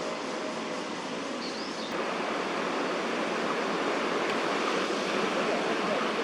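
Steady rushing outdoor background noise, a little louder from about two seconds in, with one faint short high chirp about a second and a half in.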